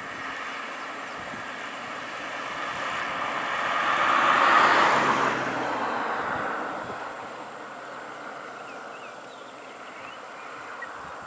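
A car driving past close by, its engine and tyre noise swelling to a peak about four seconds in and then fading away.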